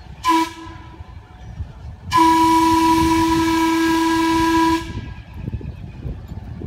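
Steam locomotive whistle: one short toot, then about two seconds later a long, steady blast lasting nearly three seconds.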